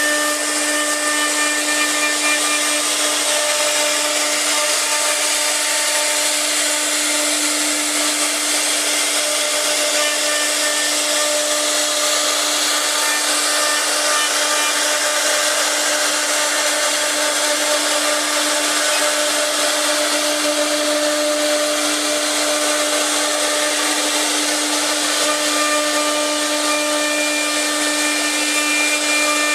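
CNC router spindle running continuously as it carves wood, a steady whine over a constant cutting noise.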